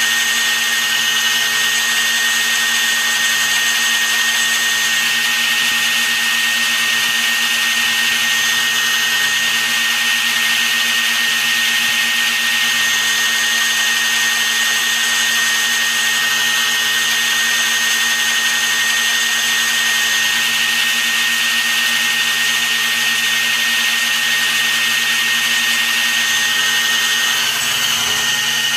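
Workshop machinery running steadily, with a constant high whine over a low hum and hiss; the sound shifts slightly near the end.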